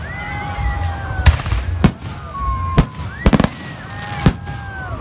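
Aerial fireworks shells bursting: sharp bangs about a second apart, the strongest in the second half, over a low rumble. Drawn-out wavering tones rise and fall between the bangs.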